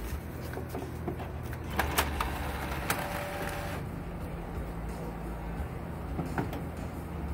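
HP Color LaserJet CP5225 laser printer running with a steady low mechanical hum, a few sharp clicks about two seconds in and again near the end, and a brief whine in between. It is working the paper feed on tray 1, the multipurpose tray it jams on.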